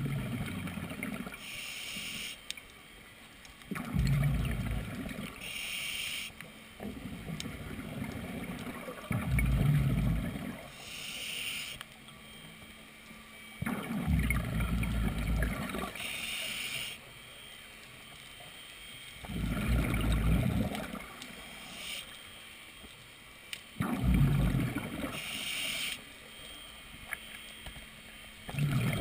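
Scuba diver's breathing through a regulator, heard underwater through the camera housing. About every five seconds there is a loud low rumble of exhaled bubbles, followed by a shorter hiss.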